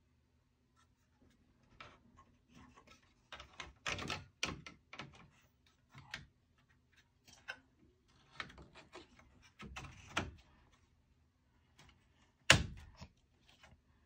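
Parts of a Dell PowerEdge R610 server being handled and refitted into the chassis: irregular clicks and knocks of metal and plastic, with one sharp, much louder knock near the end.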